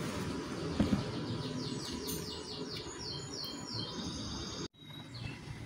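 A bird in the background singing a quick run of repeated high chirps, about five a second, over a steady hiss and hum. A single knock comes about a second in, and the sound drops out abruptly near the end.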